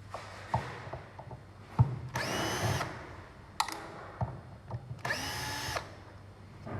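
A small drill-type power tool whirring in two short bursts about three seconds apart, each winding up quickly, with light clicks and knocks between them.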